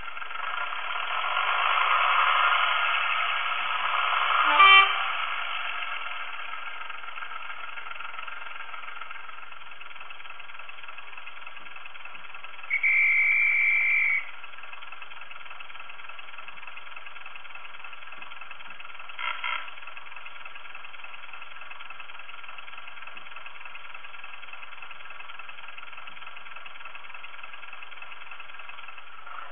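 Recorded diesel engine sound from a model Class 108 DMU's DCC sound decoder, played through the model's small speaker. It swells over the first few seconds, gives a sharp clank about five seconds in, then settles to a steady idle. About thirteen seconds in a single high steady tone sounds for about a second and a half, and two short blips follow near twenty seconds.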